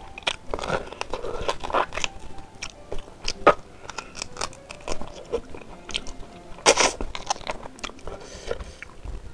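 Close-miked eating: biting and chewing meat off spiced beef ribs, with wet, irregular smacks and clicks and one louder crunch about two-thirds of the way through.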